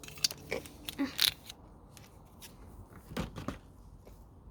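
Rustling and sharp clicks of objects being handled: a quick cluster in the first second and a half, then two knocks a little over three seconds in.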